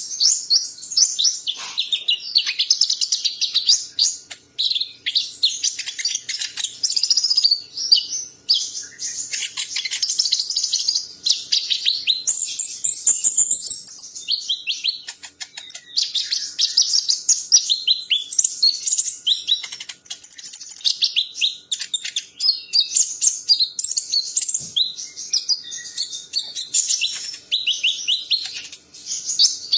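A songbird singing a long, rapid, varied song of high chirps and trills, with barely a pause.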